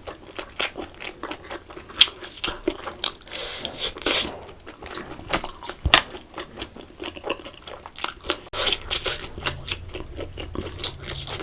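A person biting and chewing food close to the microphone, with a string of irregular short crunchy clicks.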